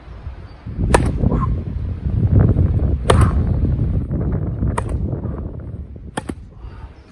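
Tennis ball rally against a rebound wall: four sharp pops as the ball is struck by the racket and bounces off the wall's tilted panel, about every one and a half to two seconds. Wind buffets the microphone with a low rumble throughout.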